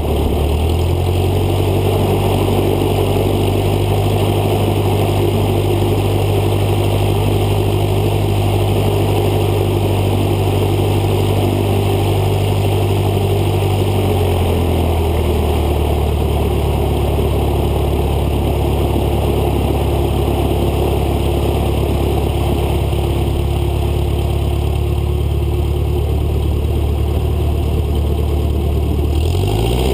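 Cessna 152's four-cylinder Lycoming piston engine and propeller running at low taxi power, heard close up from the wing. The engine note steps up about a second in, eases back down about halfway through, and starts climbing again right at the end as the throttle is opened.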